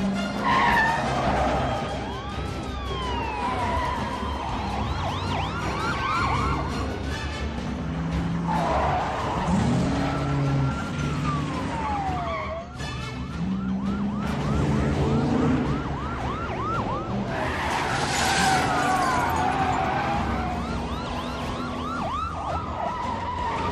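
Police car sirens sounding, sweeping slowly up and down and switching at times to a fast yelp, over car engines revving and road noise.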